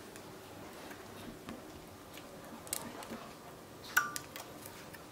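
A few faint clicks as metal tweezers and thread are worked against the overlocker's parts during threading. About four seconds in there is a louder click with a small metallic ring.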